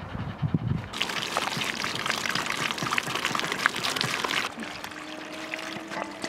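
Water pouring onto freshly picked strawberries in a stainless steel bowl as they are rinsed: a dense splashing patter that starts about a second in and eases off to a quieter trickle near the end.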